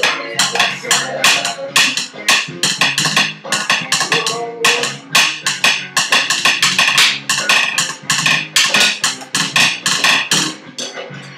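Drum kit played in a fast improvised beat, sharp strikes coming several times a second, stopping about a second before the end.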